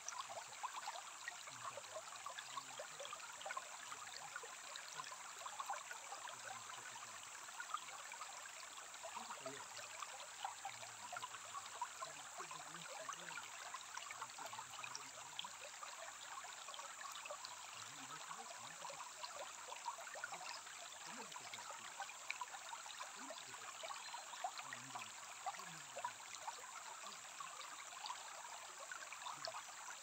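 Shallow stream babbling and trickling over pebbles and stones: a steady rush of running water with fine splashy crackles through it.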